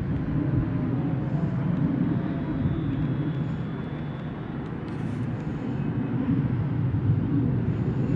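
Steady low outdoor rumble of the open-air background, without speech.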